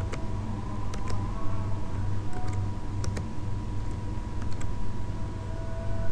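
A computer keyboard clicks a few scattered times over a steady low electrical hum.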